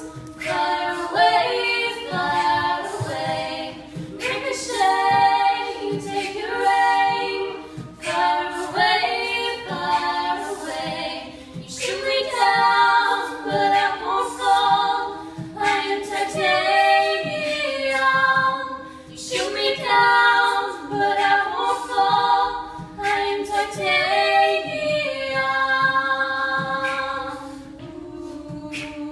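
Small student a cappella group, mostly female voices, singing an arrangement together without instruments, phrases rising and falling over a steady low sustained note.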